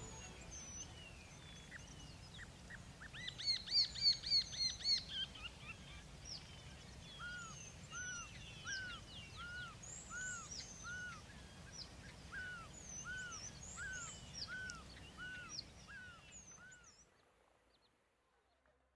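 Wild birds calling over a faint outdoor background. A quick run of high chirps comes a few seconds in, then a steady series of short arched whistled notes repeats about one and a half times a second, with scattered higher chirps over it, before fading out near the end.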